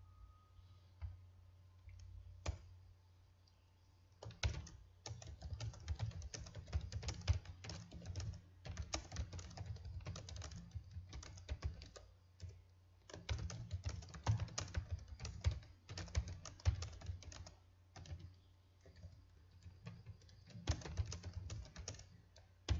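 Typing on a computer keyboard: several runs of fast keystrokes, starting about four seconds in and broken by short pauses.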